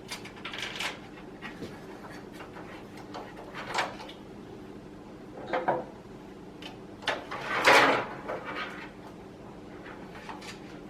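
Scattered handling sounds of a liquid-cooling radiator and fans being fitted into a PC case: short knocks and scrapes a second or two apart, the loudest a brief scrape about eight seconds in.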